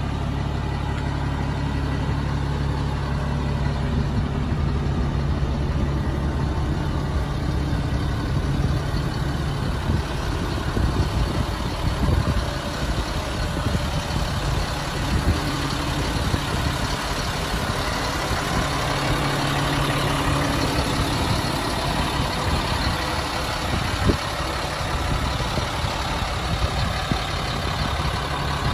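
Caterpillar 3126 turbocharged inline-six diesel of an M1084A1 6x6 military cargo truck idling steadily.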